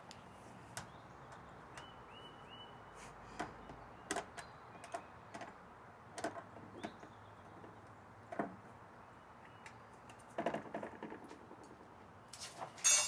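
Scattered clicks and knocks of metal parts and hand tools being handled while assembling an elliptical trainer, with a few short high squeaks about two to three seconds in and the loudest run of clatter near the end.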